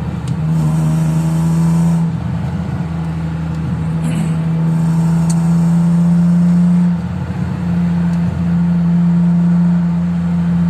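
Vehicle engine running at a steady speed, a strong even hum that falters briefly about two seconds in and again around seven and eight seconds in.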